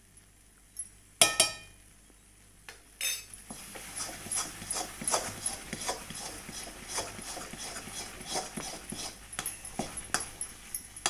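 Steel spoon stirring thick, sticky amla-and-sugar paste in a heavy non-stick kadhai, mixing in green food colour. Two sharp metallic knocks with a short ring about a second and three seconds in, then quick, uneven scraping and clacking of the spoon against the pan, several strokes a second.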